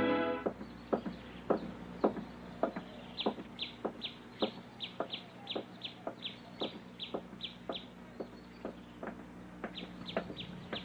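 Background music ends about half a second in, then footsteps walk along a paved path at an even pace, about two steps a second. Over them come runs of quick, high, falling bird chirps, one a little after three seconds in lasting several seconds and another near the end.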